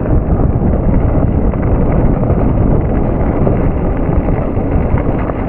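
Wind buffeting an action camera's microphone on a mountain bike descending at speed, over a steady rumble and rattle of tyres rolling on loose gravel.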